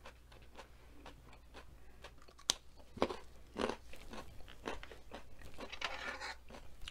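A person chewing and crunching crisp vegetables, coleslaw and an orange vegetable stick: irregular crackles and mouth clicks, the sharpest crunch about two and a half seconds in.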